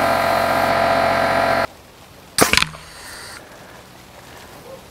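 Air compressor motor running with a steady, many-toned hum for nearly two seconds, then cutting off abruptly. About half a second later comes one sharp blast: the pneumatic potato cannon firing.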